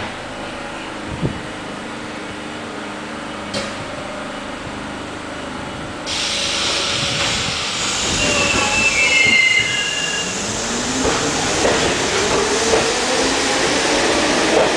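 R42 subway train standing with a steady hum, then pulling out of the station. About six seconds in the sound jumps louder. The wheels squeal briefly, and a motor whine climbs steadily in pitch as the train picks up speed.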